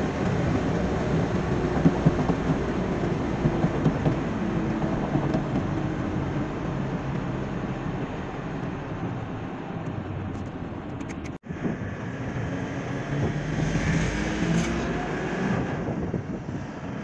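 Car engine and road noise heard from inside the cabin while driving at speed, a steady low drone. The sound drops out for a moment about eleven seconds in, and the engine note rises and falls shortly after.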